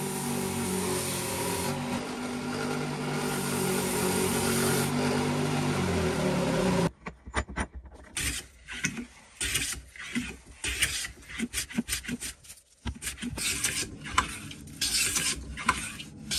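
A bench belt sander running steadily, cutting off suddenly about seven seconds in. After it, a hand plane takes a run of short, irregular strokes along a thin wooden strip clamped in a vise.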